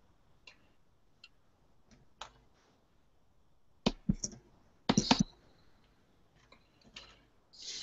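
Scattered sharp clicks from a computer mouse and keyboard being worked, with a quick cluster of clicks about four to five seconds in.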